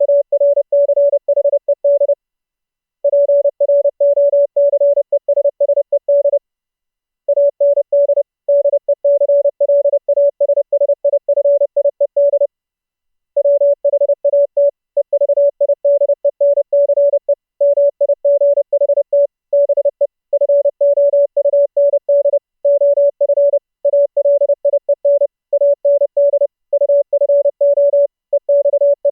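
Morse code (CW) sent as a single steady mid-pitched tone, keyed rapidly on and off in fast dots and dashes. It pauses for about a second three times in the first half, then keys on with only short gaps between characters.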